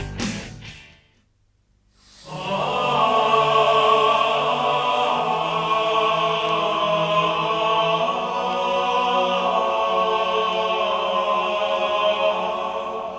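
Closing music: a guitar-rock track fades out within the first second, and after about a second of silence a new piece of long, steady held tones begins two seconds in, voice-like, like a choir or chant.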